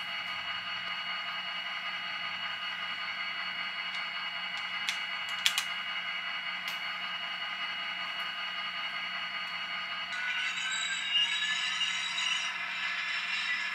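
A few small clicks as an HO-scale covered hopper is uncoupled by hand. From about ten seconds in, an HO-scale model locomotive pulls away: its small motor winds up with a rising whine and its wheels rattle over the track, over a steady background of tones.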